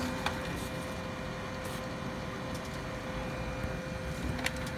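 A steady mechanical hum with a faint constant tone, and two small clicks, one just after the start and one near the end.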